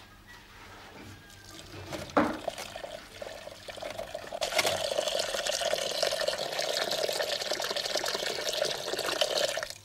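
Tap water running into an enamel bowl of stinging nettles as they are washed, starting about halfway through and stopping just before the end. Before it, light handling noises and one sharp knock about two seconds in.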